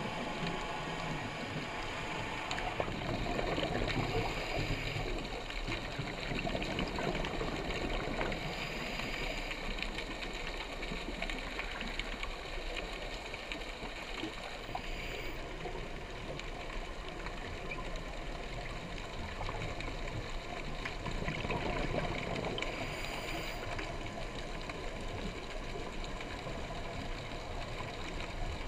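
Scuba diver's regulator breathing and exhaled bubbles, heard underwater through a camera housing as a steady gurgling, bubbling rush that swells and eases every several seconds.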